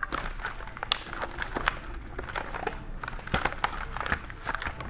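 Sketchbook pages flipping over one after another on a hand-turned flip-display: a run of irregular light clicks and paper rustles, several a second.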